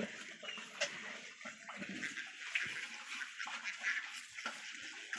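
Pigs chewing and snuffling at sweet potato leaves in a trough, a run of irregular short crunches and clicks.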